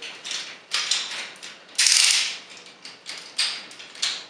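Plastic joints of a 2001 Robots In Disguise Megatron action figure clicking and scraping as its legs are rotated by hand: a run of uneven short clicks, with one longer, louder scrape about two seconds in.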